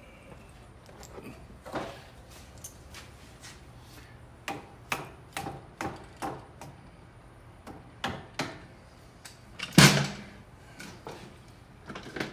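Workshop clatter: irregular knocks and clinks of tools and metal parts being handled, with one loud bang about ten seconds in.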